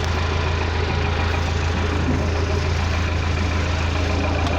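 Cat 416B backhoe loader's diesel engine idling steadily.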